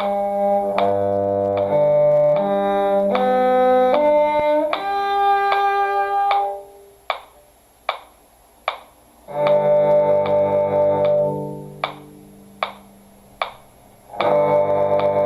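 Cello playing a slow, sustained melodic line over a metronome that clicks steadily about every 0.8 seconds. The cello stops twice, leaving only the metronome clicks, then comes back in near the end.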